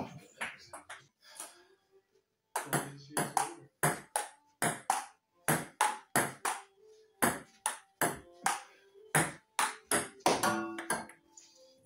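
Table tennis rally: a ping pong ball clicking off paddles and the table about two or three times a second. It breaks off briefly about a second and a half in, then resumes and runs until near the end.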